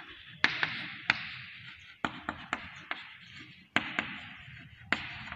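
Chalk writing on a chalkboard: a dozen or so sharp taps as the chalk strikes the board, with short scratchy strokes between them.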